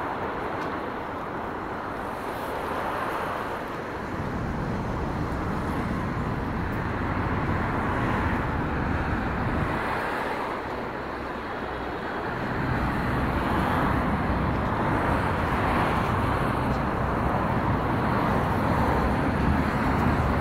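Steady city street traffic noise from cars passing on a wide road, with a low rumble that swells and eases every few seconds.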